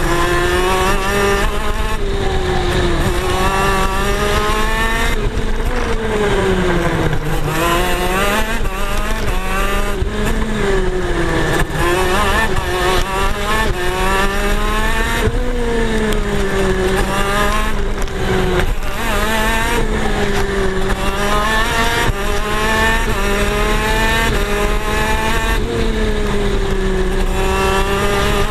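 KZ shifter kart's 125cc two-stroke engine at race pace, its pitch climbing and dropping every few seconds as it accelerates, shifts and slows for corners.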